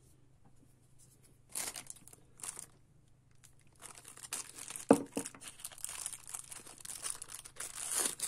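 Clear plastic bag crinkling in the hands, in two short bursts and then almost continuously through the second half, with one sharp tap a little past the middle.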